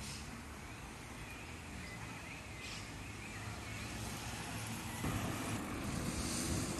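Outdoor ambience with faint bird chirps over a steady background hum; from about five seconds in, a louder low rumble comes up.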